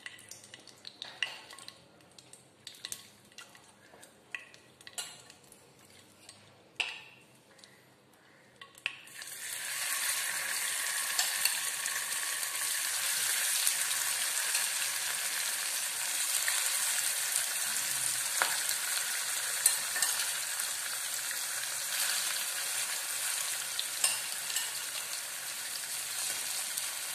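Marinated paneer cubes shallow-frying in hot oil in a non-stick kadai. After a few faint clicks, a loud, steady sizzle sets in about nine seconds in, with occasional sharp clicks as the pieces are turned with a wooden spatula.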